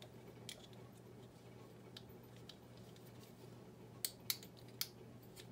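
Light clicks and taps of small plastic model-kit parts being handled and fitted together, with three sharper clicks in quick succession about four seconds in, over a faint steady hum.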